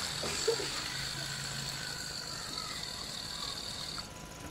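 The small DC motor of a homemade toy tractor runs under power as the tractor drives along, giving a steady high-pitched whine over a faint low hum. The whine cuts off about four seconds in.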